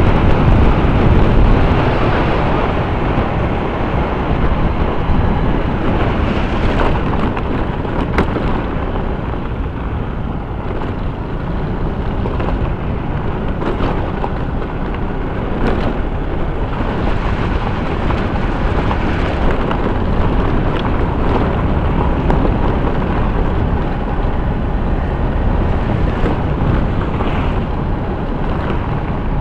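Steady wind rush on the microphone and road noise of a moving vehicle, loudest in the first couple of seconds. A few sharp knocks come later as it runs over a rough, unpaved stretch of road.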